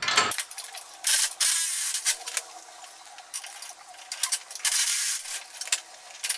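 Metal scraping and rubbing, in several short spells, as the bolt is worked out of the golf cart's rear leaf-spring mount.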